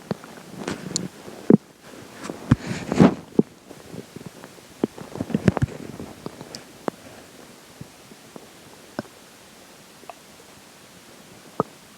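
Stomach gurgling and rumbling while digesting a meal. A busy run of short gurgles and pops fills the first half, then it thins to a few scattered single pops.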